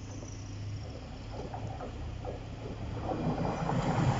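Two coupled Class 185 diesel multiple units approaching and running over the level crossing, the diesel rumble and rail noise building sharply from about three seconds in as the train reaches the crossing.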